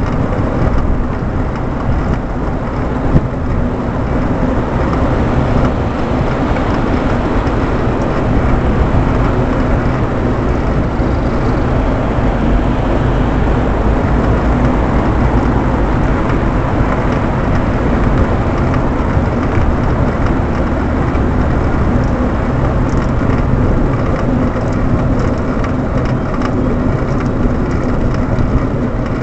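Steady noise of car traffic driving alongside on a busy multi-lane road, heard from a moving bicycle.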